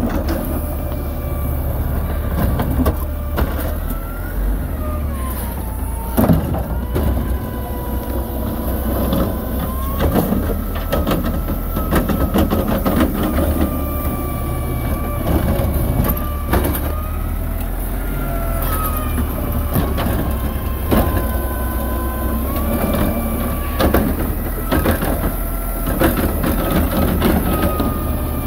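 Automated side-loader garbage truck working its lift arm: the diesel runs up under load as the hydraulic pump whines, its pitch rising and falling again and again, with repeated metallic clanks as trash barrels are gripped, tipped into the hopper and set back down.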